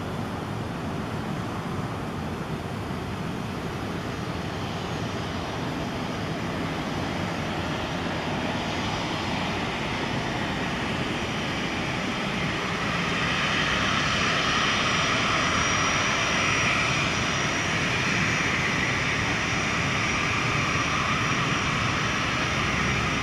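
Boeing 737-400 airliner's CFM56-3 turbofan engines running at taxi power on the runway, a steady jet whine. About halfway through, as the aircraft swings round to face nose-on, the sound grows louder and higher whining tones come through.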